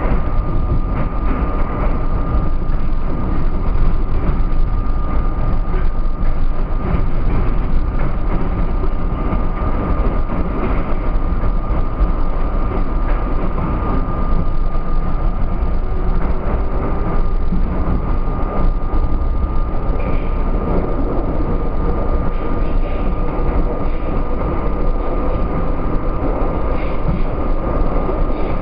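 R32 subway car running through a tunnel: a steady loud rumble of wheels on rail, with a thin high tone held throughout and a fainter tone slowly rising in pitch over the second half.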